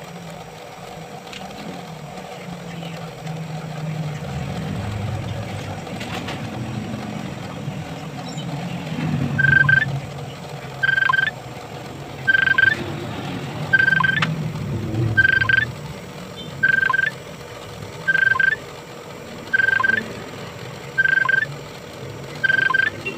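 A short, high electronic beep repeating evenly about every second and a half, starting about nine and a half seconds in, over a low steady rumble.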